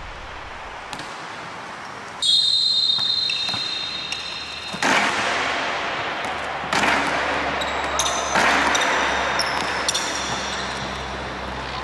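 Basketball dribbled repeatedly in a ball-handling drill, with sharp bounces one after another. About two seconds in, a steady high tone starts and lasts a couple of seconds.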